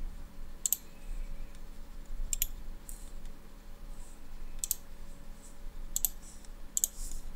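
Computer mouse button clicking: about five sharp, short clicks at uneven intervals.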